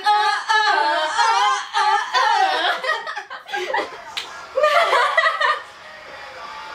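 Two women laughing and squealing excitedly, with a sharp hand slap near the start. The laughter comes in two bouts and dies down about six seconds in, leaving faint music.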